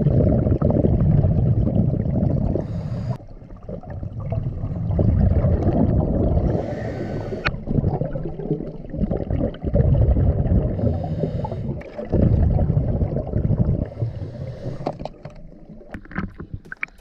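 Scuba regulator exhaust bubbles heard underwater: a diver's exhaled breaths, about four long bubbling surges of two to three seconds each with quieter gaps for the inhale, dying away near the end.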